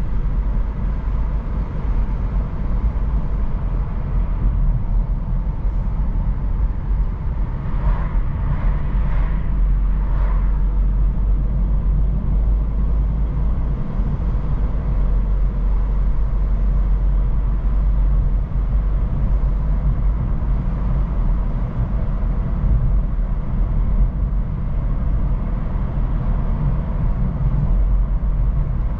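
A moving car's road and engine noise: a steady low rumble, with a couple of brief higher sounds about eight and ten seconds in.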